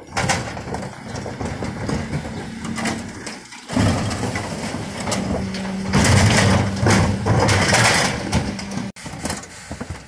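Refuse truck's Geesinknorba Combi-split hydraulic bin lifter raising and tipping two wheelie bins, the truck's engine running under load with a steady hum from about four seconds in. Loud rattling and banging of the bins and falling waste peaks between about six and eight seconds, then cuts off abruptly, leaving quieter engine running near the end.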